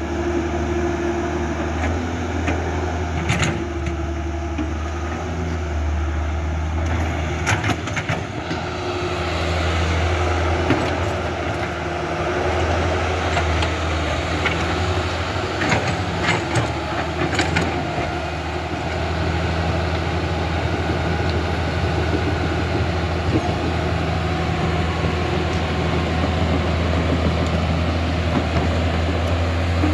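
Huina radio-controlled toy excavator running, a steady low hum with whirring that swells and eases as the boom and bucket move, with a few sharp clicks scattered through.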